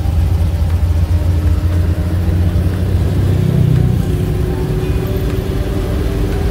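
A motor vehicle running steadily, its engine and road noise giving a heavy low rumble, with a faint engine tone rising slowly over the last couple of seconds as it speeds up.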